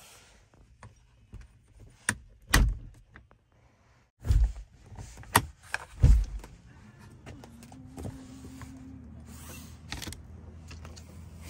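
Clicks and knocks of a camper's screen door and door latch being handled as the door is pushed open, the loudest about two and a half, four and six seconds in. A faint steady hum follows once the door is open.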